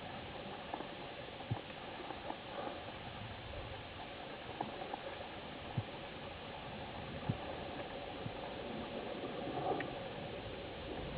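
Underwater ambience picked up by a camera in its housing: a steady rush of water with scattered short clicks and pops at irregular intervals, over a faint steady hum.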